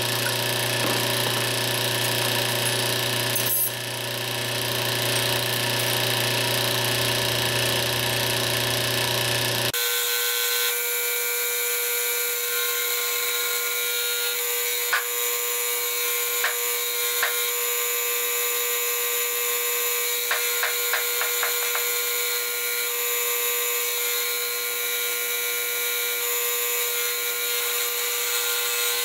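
Steady hum of running shop machinery. About ten seconds in the sound changes abruptly: a deep low rumble drops out, leaving a steady mid-pitched hum. Over it come a few light metallic clicks and a quick run of ticks about twenty seconds in.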